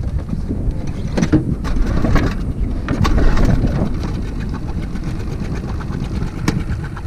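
Honda four-stroke tiller outboard motor running at low speed, with a few sharp knocks as the motor is handled.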